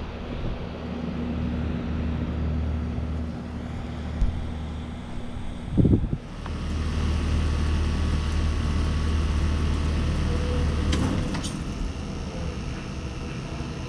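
Carrier Sentry central air conditioner condenser running with a steady low hum, then shutting down: a loud clunk about six seconds in, and the running sound drops off near eleven seconds. Other condensers keep humming underneath.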